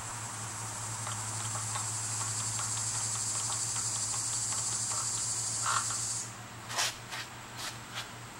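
Steady high-pitched chorus of insects, cut off abruptly about six seconds in, then a few sharp clicks and light taps.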